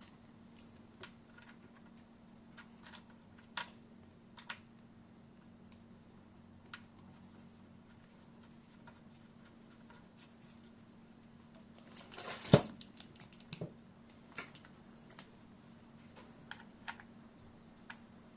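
Scattered light clicks and taps of computer parts being handled during assembly, with a brief louder clatter about twelve and a half seconds in, over a faint steady hum.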